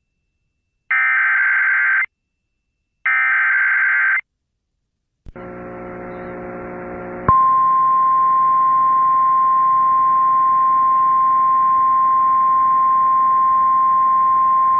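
Emergency Alert System header: two one-second bursts of the SAME digital data tones, each ending suddenly. After a short gap comes about two seconds of buzzing hum, then from about seven seconds in the steady single-pitch 1050 Hz National Weather Service warning alarm tone.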